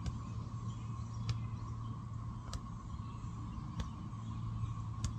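Qigong self-tapping: a fist pounding the hollow under the collarbone while the other hand hits the lower back, about one sharp thump every second and a quarter. A steady background hum runs underneath.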